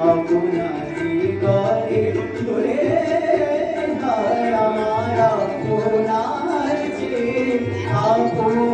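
A solo voice singing a melodic song into a microphone, accompanied by tabla, with the drum's low strokes sounding under the melody.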